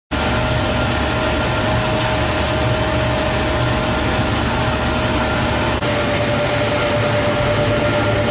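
Biomass wood-powder burner firing, a steady rushing noise of flame and blower air with a steady whine on top. It briefly drops out just before six seconds, then carries on the same way.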